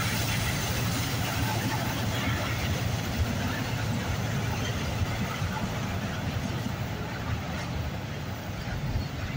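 Autorack freight cars rolling past: a steady rumble of steel wheels on the rails, with a few sharper knocks.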